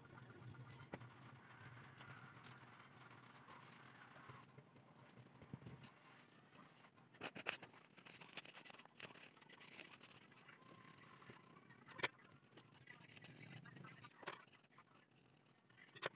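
Near silence with faint handling of paper and cardboard: light rustling as sheets are folded and moved, and a few short taps or clicks spread through.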